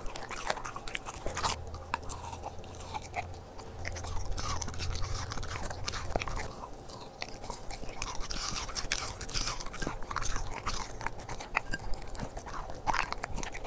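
Corgi chewing and biting its raw food close up, wet chews broken by sharp, irregular crunches.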